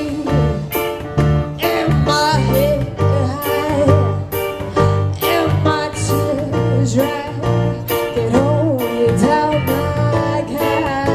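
Live band music with a steady drum beat and guitar, with a wavering melodic lead line over the chords.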